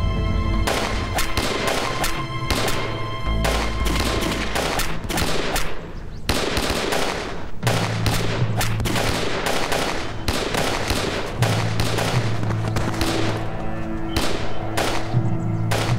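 Rifle fire: many shots in quick succession, at times in rapid bursts, over a film score's sustained low notes.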